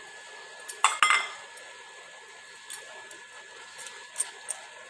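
A steel spoon clinks against a metal cooking pan a few times while lumps of boiled fish are pushed into a thick masala. The loudest pair of clinks comes about a second in, with lighter taps later.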